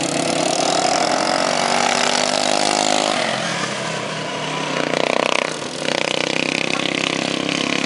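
Racing lawn mowers' small engines running hard at high revs as they go by, a buzzing engine note that drops in pitch in the first few seconds as they pass.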